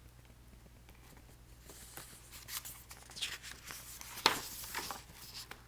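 Faint paper rustling and light handling noise, as of a picture book's page being turned, with a sharper click about four seconds in.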